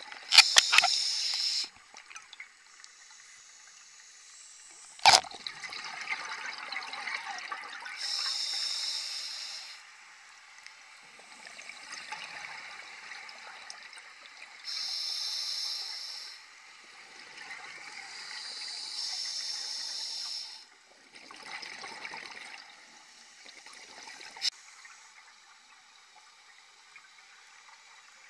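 Scuba diver breathing through a regulator underwater: hissing inhalations every few seconds, alternating with bubbling exhalations. A sharp click about five seconds in.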